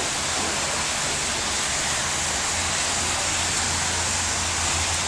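Heavy rain pouring down in a steady, even hiss, with a faint low rumble growing from about halfway through.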